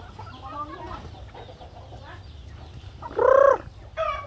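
Chickens clucking and chirping as a flock of roosters and hens forages, with one loud call that rises and falls, about three seconds in.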